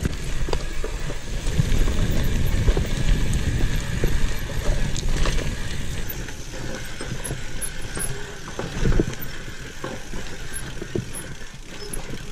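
Commencal Meta AM 29 mountain bike descending a dirt trail: tyres rumbling over leaves, dirt and rocks, with frequent rattles and knocks from the bike over the bumps. It is loudest in the first half and eases somewhat after about six seconds.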